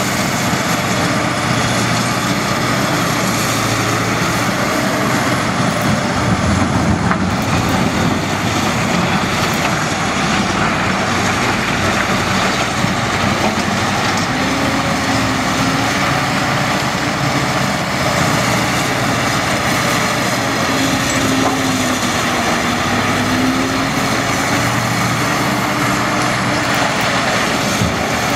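Diesel engines of a Caterpillar 992G wheel loader and a Caterpillar 777C haul truck running steadily under load. The loader's engine rises and falls in pitch as it dumps, reverses and drives back to the truck.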